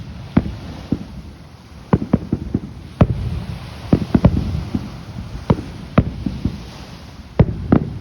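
Fireworks going off: an irregular string of sharp bangs, some coming in quick clusters of three or four, with low rumbling tails between them.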